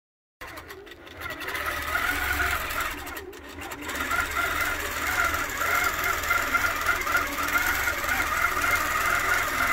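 Qnique 15 long-arm quilting machine running steadily as it stitches an automated design, with a slightly wavering pitch. Brief clicks and rustles come about a second in and again around three seconds in.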